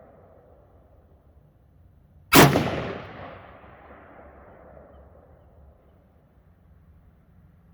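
A single AR-15 rifle shot with steel-case ammunition about two seconds in, its echo trailing off over the next couple of seconds. The fading echo of the previous shot is heard at the start.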